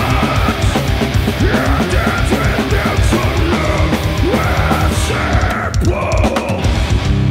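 Doom metal band playing live: heavily distorted electric guitars, bass and a drum kit. The sound thins out briefly about six seconds in, then the full band comes back in.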